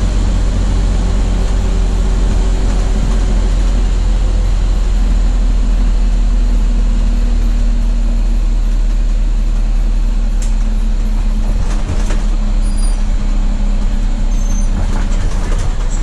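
Interior of a 1982 Chevrolet Blue Bird school bus cruising at highway speed: a steady engine drone with road and wind noise.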